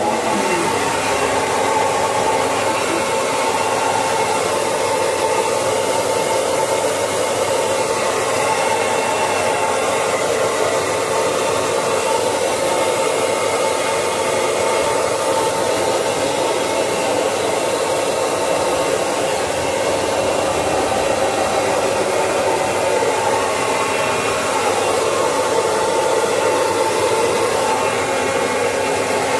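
Handheld hair dryer switched on and then running steadily: a constant rush of air with a steady hum in it.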